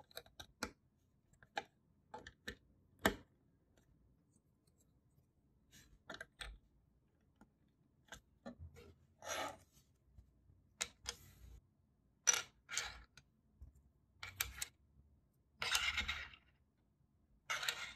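Plastic Lego bricks clicking as they are pressed together and set down on a wooden table. The clicks are sharp and irregular, with a few short rattles of pieces being handled.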